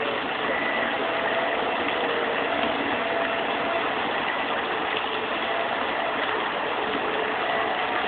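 Bumper boat engines running in a steady drone, with a few faint steady tones over a noisy hum.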